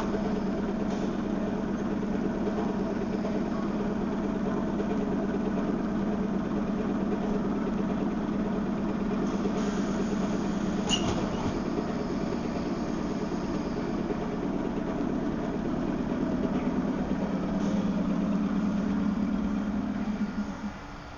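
ER2T electric multiple unit standing at the platform, its on-board auxiliary machinery running with a steady hum; there is one short click about eleven seconds in. The hum stops abruptly shortly before the end.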